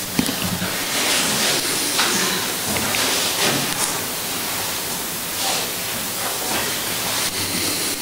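Steady hiss of noise with a few faint clicks.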